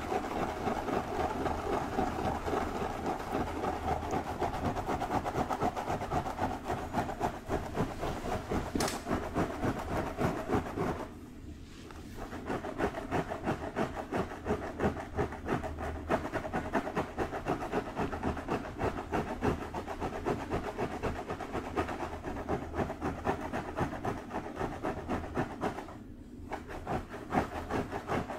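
Fingertips and nails scratching and rustling through long hair in quick, continuous strokes, with two brief pauses.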